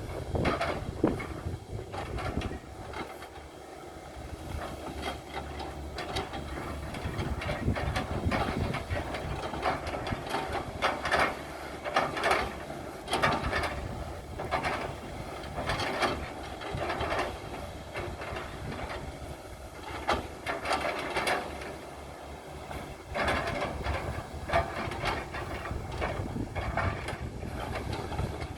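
Excavator at work: its engine runs steadily under irregular loud clanks and bursts of noise.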